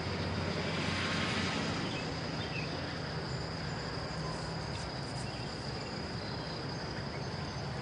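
Insects trilling steadily in one high, unbroken tone, over a steady low hum.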